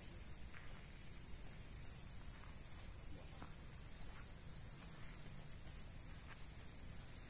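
Insects chirring steadily in a high, finely pulsing drone, over a low rumble and faint, evenly spaced soft steps.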